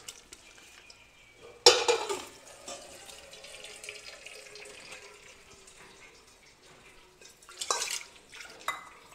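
Boiled drumstick pieces and their cooking water poured from a pressure cooker into a perforated stainless steel colander: a sudden splash about two seconds in, then liquid trickling and dripping through the holes, and a second splash near the end.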